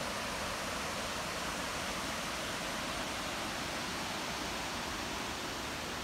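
Steady rushing of a river pouring over a waterfall and through rapids.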